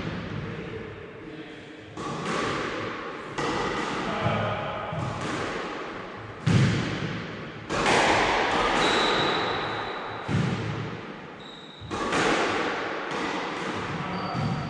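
Squash ball being hit back and forth in a drill: sharp racket and wall strikes about every one to two seconds, each ringing out in the court's echo, with a couple of brief high squeaks between them.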